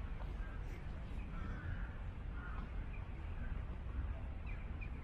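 A flock of crows cawing, with scattered calls here and there over a steady low background rumble.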